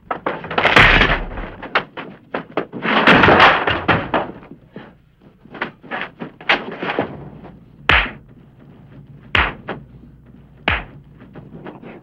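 Sound effects of a staged western brawl: two long crashing, scuffling noises in the first four seconds as a heavy wooden wagon is wrenched at, then three sharp dubbed blows, each with a low thud, about a second and a half apart.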